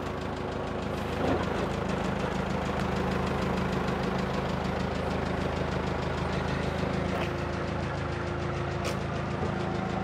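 Semi truck's diesel engine idling steadily, with a couple of faint clicks late on.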